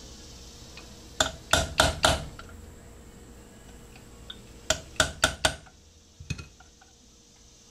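Ball-peen hammer tapping a steel pin punch to drive a roll pin into a stainless steel AR-15 gas block: two quick runs of four sharp metallic taps. A single duller knock follows near the end as the hammer is set down on the bench.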